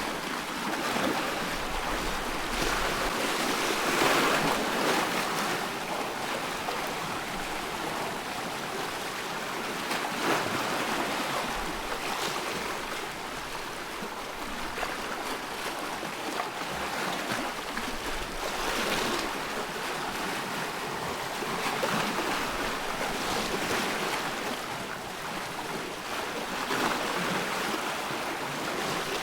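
Loch water washing in small waves, a steady wash that swells every few seconds.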